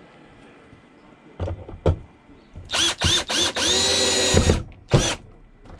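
Power drill running in several short trigger bursts, then a longer run about three and a half seconds in whose pitch climbs and holds, and a final short blip: a screw being driven into the camper shock mount.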